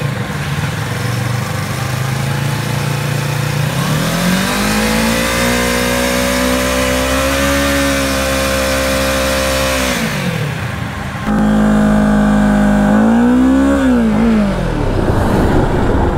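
Kawasaki Ninja 650's parallel-twin engine revved up hard and held at high revs for several seconds with the rear wheel spinning in place in a burnout, then dropping back. About 11 s in a louder, steady engine note follows, with one short rev that rises and falls.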